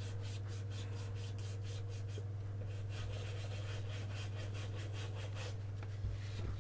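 Faint rubbing and scraping as the opened plastic soundbar casing is handled and shifted on a wooden desk, with a couple of small knocks near the end, over a steady low hum.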